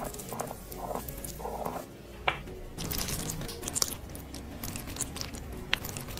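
A plastic roller massager rolling over the fingers, its rollers sounding in a repeating rhythm about twice a second. About two seconds in comes a sharp click, then the wet, sticky sound of a brush spreading a thick gel mask over skin, full of small clicks.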